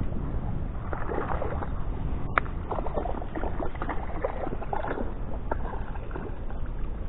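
A hooked mackerel splashing at the surface in a rapid, irregular patter as it is brought in to the rocks, with one sharp click about two and a half seconds in. Wind rumbles on the microphone.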